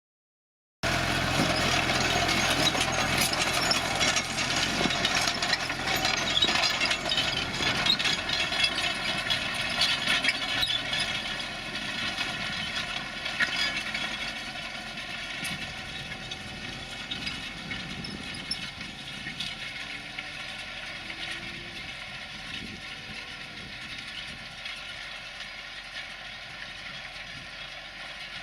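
New Holland T6010 tractor engine running steadily under load while ploughing with a Kverneland plough. It grows fainter after about ten seconds.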